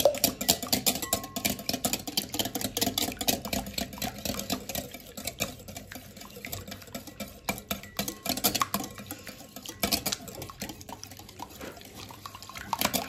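Wire whisk beating eggs in a glass bowl: a rapid run of light clicks as the wires strike the glass.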